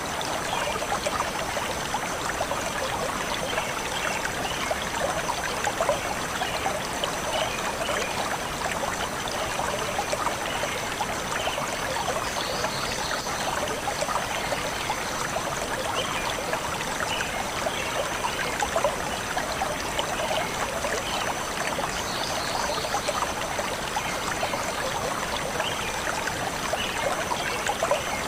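Stream flowing steadily, a continuous trickling rush of water.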